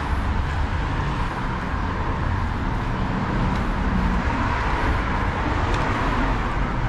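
Steady road traffic noise from cars passing on a city street.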